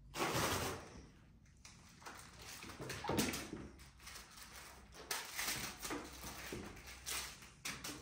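British Shorthair kitten scampering and batting a small toy across a tiled floor: irregular scuffs, skids and rustles, loudest just after the start and again about three seconds in.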